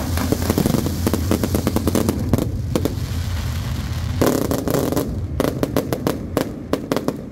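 Aerial fireworks shells bursting overhead in a dense barrage of bangs and crackling, with a loud burst about four seconds in, then thinning to scattered cracks near the end.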